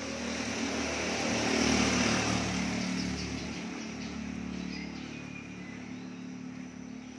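A motor vehicle passing on a nearby road, growing louder to a peak about two seconds in and then slowly fading, over a steady low hum.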